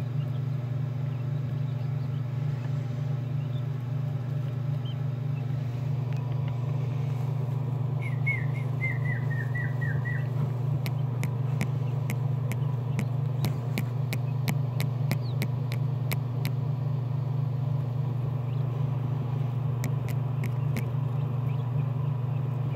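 Newly hatched Coturnix quail chicks peeping: a quick run of about eight short, falling chirps, about eight seconds in, over a steady low hum. Sharp little ticks come in quick runs in the second half.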